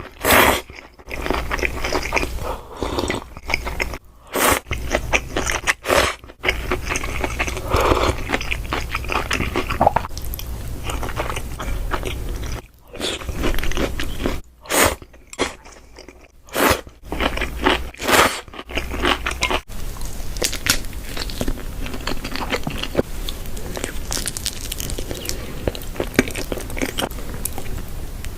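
A person eating close to the microphone: biting and chewing crunchy food, with bursts of sharp crunches broken by short pauses, turning into denser, finer crackling in the second half.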